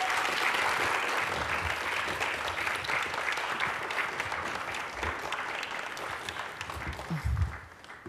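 Audience applauding: dense steady clapping that dies away near the end, with a brief low thump just before it fades.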